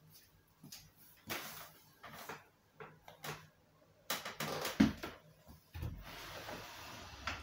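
Wooden frame and folding legs of a homemade pool table being handled on a wooden floor: scattered knocks and clicks, one sharp knock about two-thirds of the way through, then a scrape lasting over a second near the end.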